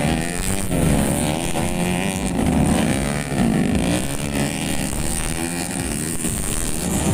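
Several modified underbone-engined (bebek modif) grasstrack motorcycles revving through a dirt corner, their overlapping engine notes rising and falling in pitch as they pass one after another.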